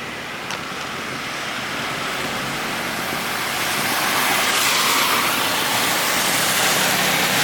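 A car driving on a rain-wet road: a steady rushing hiss of tyres on wet tarmac that grows louder over the first four seconds or so, then holds, with a faint low hum underneath.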